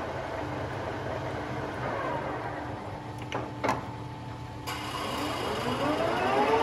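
Nuttall Generation 500 lathe with its motor humming steadily; two metallic clunks come as the headstock speed levers are shifted. About two-thirds of the way through, the spindle is engaged and the geared headstock whines up in pitch as the chuck spins up to speed.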